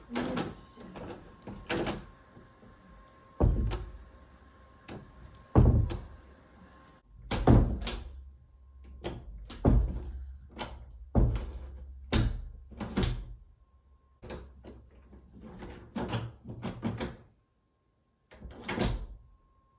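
Interior door knob and latch being worked by hand: an irregular series of metallic clicks and rattles, with several heavier knocks of the door or latch.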